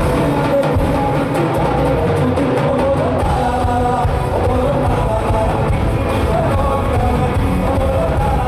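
Loud music with singing over a heavy, steady beat, playing without a break.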